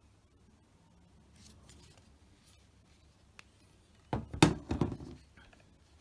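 Dunlop 200G tennis racket frame being handled and shifted on a cutting mat, giving a short cluster of knocks and rubbing about four seconds in. Before it there is faint rustling of a vinyl wrap strip and a single click.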